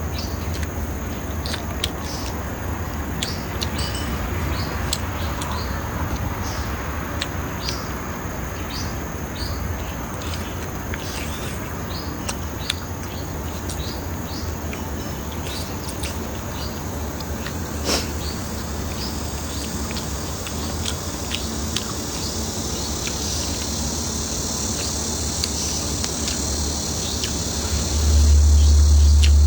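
A steady low hum under scattered light clicks, with a high, steady insect-like drone coming in near the end.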